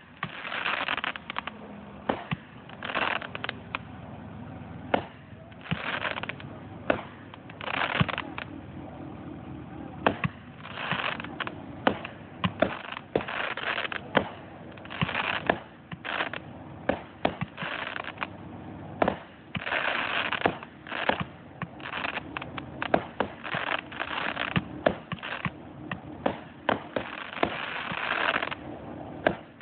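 Two consumer firework cakes firing back to back, shot after shot. Sharp launch reports are mixed with longer bursts of noise from the breaking shells, about one or more every second.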